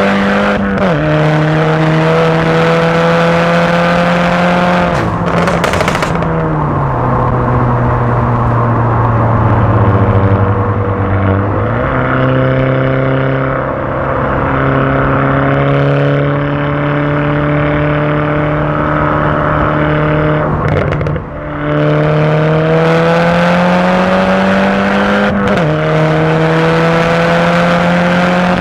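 Remapped Stage 2 Mk6 Volkswagen Golf GTI's turbocharged 2.0-litre four-cylinder, heard from inside the car, pulling steadily through the gears. The engine note climbs slowly in each gear and drops sharply at about five gear changes, with bursts of exhaust pops and crackles around two of the lifts.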